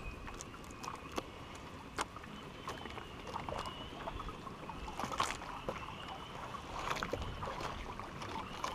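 Water lapping and sloshing against the hull of a small outrigger boat, with faint scattered clicks and ticks.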